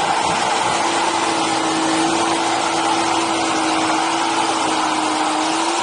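Nissan drift car's engine held at steady high revs through a slide, its note creeping slightly higher, over a continuous rush of tyre and wind noise.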